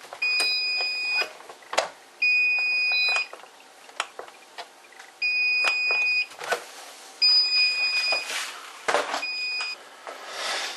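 Redmond RV-R250 robot vacuum beeping its alarm in steady high beeps about a second long, repeated roughly every two seconds. The alarm is the sign that its floor sensors cannot see the floor under the glass surface. Short clicks and rustles of handling come between the beeps.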